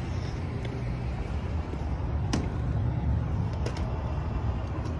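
Steady low rumble with a few sharp clicks and knocks; near the end a locked glass storefront door is pulled and clacks in its frame without opening.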